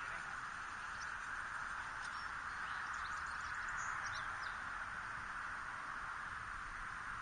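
Outdoor riverbank ambience: a steady high-pitched chorus, with a few faint short high chirps about a second in and again between three and four seconds in.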